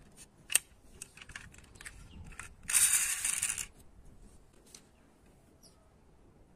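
Small metal-and-plastic clicks of a diecast model school bus being handled, its opening door and fold-out stop sign snapping shut, with a sharp click about half a second in. Midway comes a rasping, scraping noise lasting about a second.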